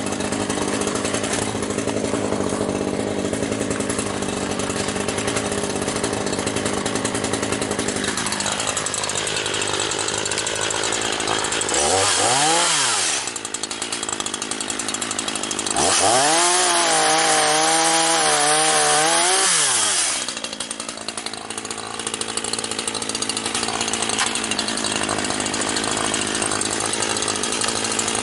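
Chainsaw idling, blipped up briefly once, then held at full throttle for about four seconds with its pitch wavering as it cuts through a sawmill scrap, before dropping back to idle.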